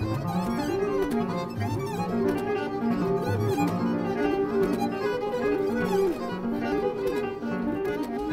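Contemporary chamber music: violin and bass clarinet playing, with repeated sliding, arching pitches in the low-middle register.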